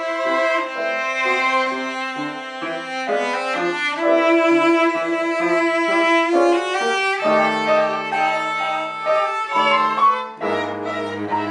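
Piano trio of violin, cello and piano playing a classical fantasia on a Ukrainian folk song: held bowed notes over piano, with deep low notes coming in near the end.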